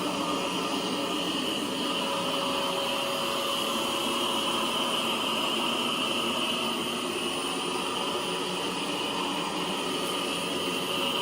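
Lefant M3 robot vacuum running, its suction fan making a steady whirring hiss with a high whine over it as it vacuums up powder spread on the floor.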